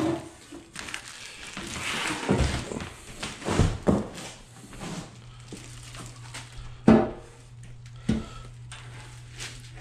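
Several dull thuds and knocks as plastic-wrapped treadmill frame pieces are pulled from the carton and handled, with some rustling of plastic wrap. The loudest knock comes about seven seconds in, and a faint steady hum sets in about halfway.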